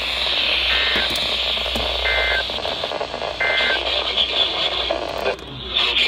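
Portable NOAA weather radio hissing with static between stations as it is tuned, with three short electronic beeps about a second and a half apart as its buttons are pressed. The hiss drops out briefly near the end.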